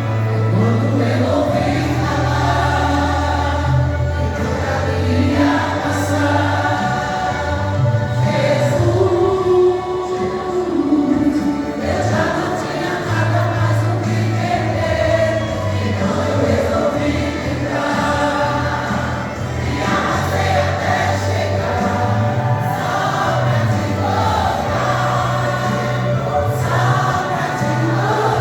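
A church vocal group singing a gospel song together, several voices in harmony, over instrumental accompaniment with held low bass notes.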